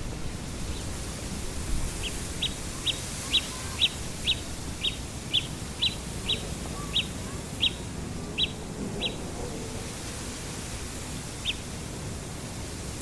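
A bird giving a run of short, sharp, high call notes, about two a second for some seven seconds, then one more a couple of seconds later, over steady wind noise.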